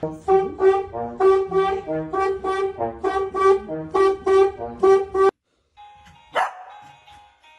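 A corgi barking over and over, about twice a second, at an animated Snoopy toy, mixed with the toy's music. It cuts off abruptly about five seconds in, and after a short gap a sharp clack and more of the toy's music follow.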